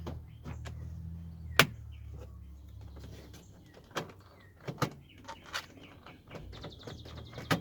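Sharp plastic clicks and knocks as the tight door-pull release cable is forced into place on a new Toyota Highlander inside door handle. The loudest click comes about a second and a half in, and a few more are spread through the rest.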